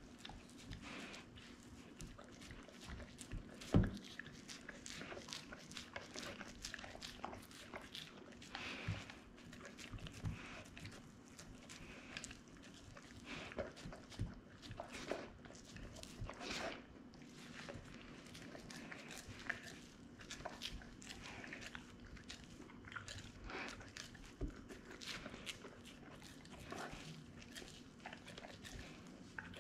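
An American Akita eating a cheeseburger off a plastic cutting board: irregular wet chewing, smacking and licking, with small knocks of its muzzle and the food against the board. There is one louder thump about four seconds in.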